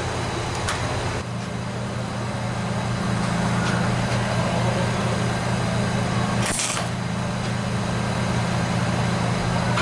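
Steady electrical hum of a Mac Tools MW150K MIG welder switched on and standing ready, with a short burst of noise about six and a half seconds in.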